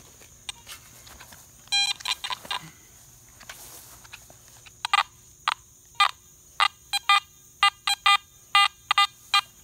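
Garrett AT Max metal detector giving its target tone in short repeated beeps as the coil is swept over a freshly dug hole to recheck the signal. There is a brief cluster of beeps about two seconds in, then steady beeping about twice a second through the second half.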